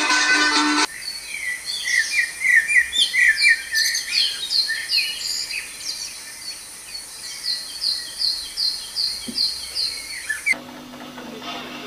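Recorded birdsong played as ambient sound for a model railway scene: a run of short, repeated downward-sweeping chirps, lower at first and higher later. Background music cuts off about a second in, and a steady low hum starts near the end.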